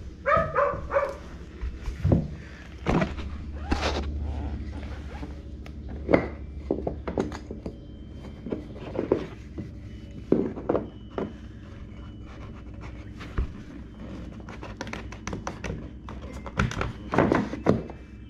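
Thunks and taps of a small wooden baseboard trim piece being handled and set against the wall at a door jamb. The knocks are scattered at first, with a quick cluster of knocks near the end as the piece is pushed home.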